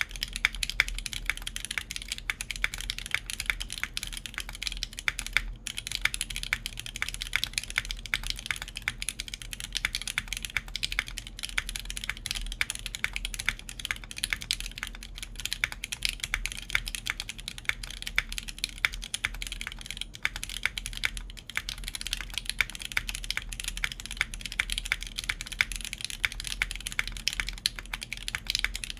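Continuous fast typing on a TB-65F custom mechanical keyboard in spring capsule mount: lubed JWK Alpaca linear switches with 62 g springs on a full copper plate, under GMK Cosmos keycaps, giving a dense run of clacking keystrokes with no pauses. A steady low rumble sits underneath.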